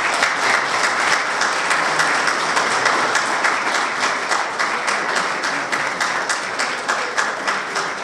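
A roomful of people applauding: many hands clapping at once, breaking out suddenly and keeping up a steady, dense clatter.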